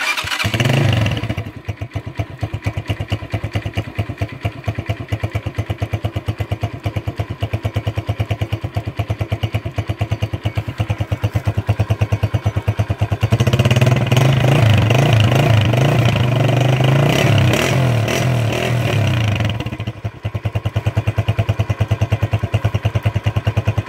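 Kuba Çita 150R motorcycle's 150 cc engine catching right at the start and running on freshly changed oil, a fast steady pulsing idle. It is raised to a louder, higher-revving run from about halfway through for several seconds, then drops back to idle near the end.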